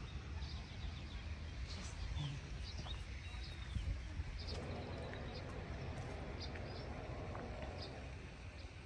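Birds chirping and calling with many short high notes through the whole stretch, over a steady low rumble.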